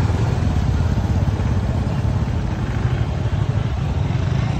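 Motor scooter running at low speed, a steady low rumble with a fast even flutter.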